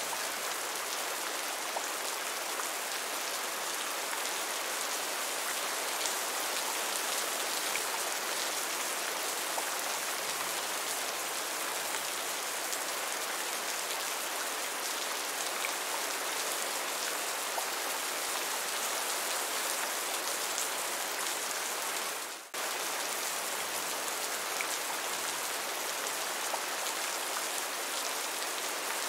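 Heavy rain falling steadily, an even hiss of countless drops, with a momentary dip in level about three-quarters of the way through.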